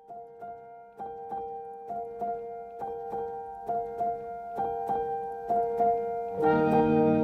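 Background music led by piano: a steady run of struck notes about two a second over held tones, growing gradually louder. Fuller, deeper accompaniment joins near the end.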